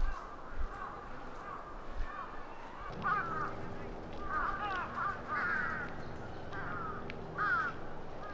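Crows cawing in a series of calls, faint at first and louder from about three seconds in.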